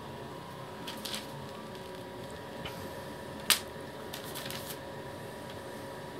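Wooden stick stirring silicone sealant and water inside a plastic syringe barrel: faint scraping and small clicks, with one sharp click about three and a half seconds in.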